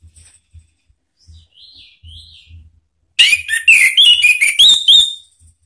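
Orange-headed thrush singing: two soft whistled notes, then about three seconds in a loud, quick run of about eight varied whistled and chattering notes lasting about two seconds.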